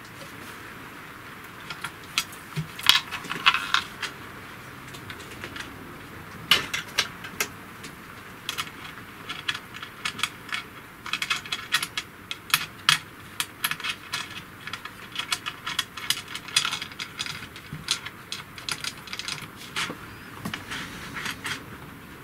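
Small metal screws and fittings clinking and clicking irregularly as they are handled and slid along the aluminium bed and the MDF spoilboard of a 3018 CNC router.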